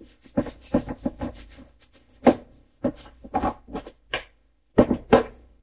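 A cleaning wipe rubbed hard over a wooden cabinet door in short, uneven strokes. Near the end come sharper knocks of the wooden door being turned over on a wooden table.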